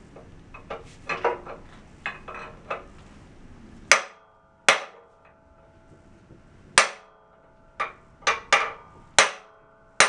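A hammer strikes a metal drift held against the carrier bearing of a differential carrier, trying to shatter the bearing cage. Softer knocks and clatter come first, then from about four seconds in there are about nine sharp metal blows, some in quick succession, each leaving a short metallic ring.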